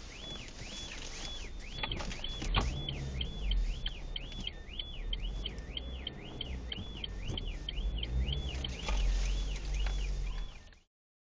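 Car alarm siren wailing, a tone sweeping up and down about twice a second, over a low rumble, with a brief knock about two and a half seconds in. It cuts off abruptly near the end.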